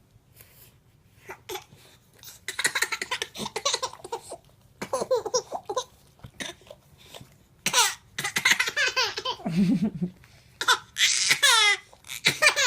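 A baby laughing in about four bursts of giggles, with short pauses between them.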